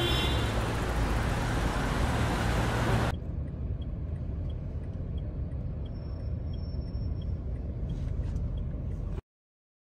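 Steady road traffic and vehicle engine hum at a station taxi rank. About three seconds in it drops abruptly to a quieter outdoor street ambience with faint, evenly spaced ticks, then cuts off to silence near the end.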